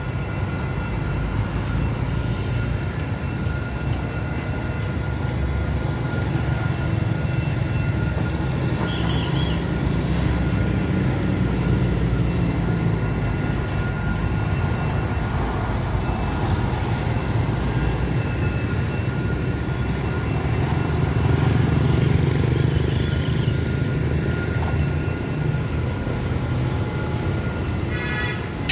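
Steady low engine rumble with a few faint steady high tones over it, swelling slightly about two-thirds of the way through; right at the end comes a quick run of clicks.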